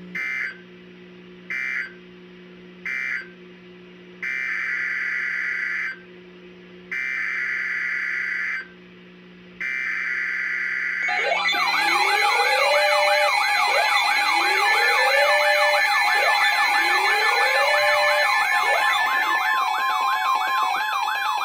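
Emergency Alert System data bursts: three short buzzy screeches (the end-of-message code), then three longer ones (the next message's header). About eleven seconds in, a loud attention alarm starts and holds to the end: a steady two-tone chord with warbling, siren-like sweeps and repeated rising glides layered over it.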